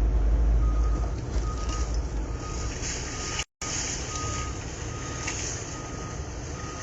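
A vehicle's reversing alarm beeping steadily, short single-pitch beeps a little more than once a second, over a low rumble that is loudest in the first second. The audio cuts out completely for a split second about halfway through.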